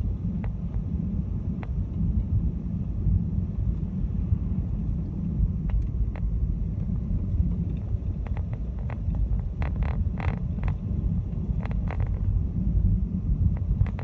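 Steady low road and engine rumble heard inside a car's cabin while driving slowly on a snow-covered road, with scattered short clicks and crackles that bunch together about two-thirds of the way through.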